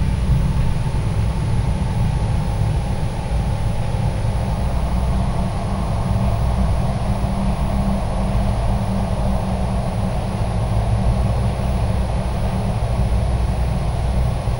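A loud, steady, low rumbling drone that holds unchanged throughout, with a faint hiss above it: a tense ambient drone in the film's sound design.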